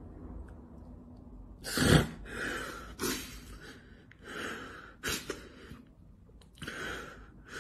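A man crying: about six short, breathy sobs with quiet gaps between, the loudest about two seconds in.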